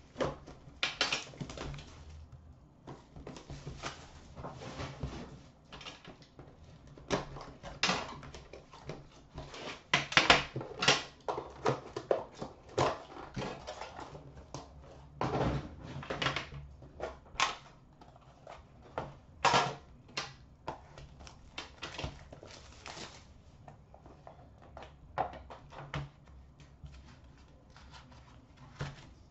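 Plastic wrapping being torn and crinkled off an Upper Deck The Cup hockey card tin, then the metal tin and its inner box being handled and opened: irregular rustles, clicks and knocks.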